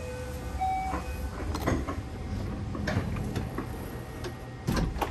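Sleeper train running with a steady low rumble under the floor. Over it come clicks and knocks from a compartment's sliding-door lock lever being worked, the loudest cluster near the end as the door is pulled open.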